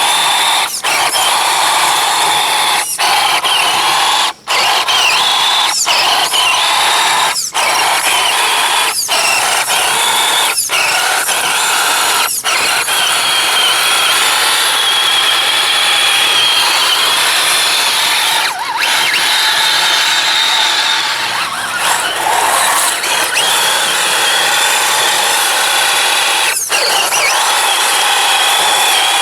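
Axial SCX10 RC truck's electric motor and geared drivetrain whining under throttle as it churns through mud, the high pitch wavering with motor speed. In the first half the whine cuts out briefly every second or two as the throttle is let off and reapplied.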